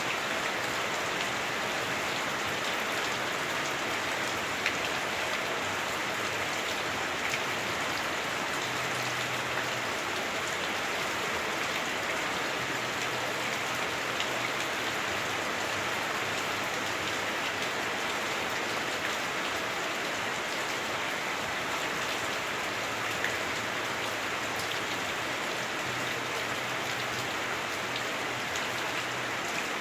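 Heavy rain falling on a house roof, heard from inside the house as a steady, dense hiss, with a few sharper single drops now and then.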